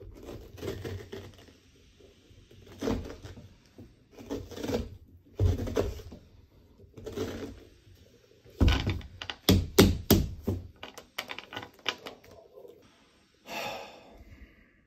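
Metal ice cream scoop scraping seeds and stringy pulp out of the inside of a pumpkin in repeated strokes, about one every second and a half. About two-thirds of the way through there is a quick run of sharp knocks and thuds.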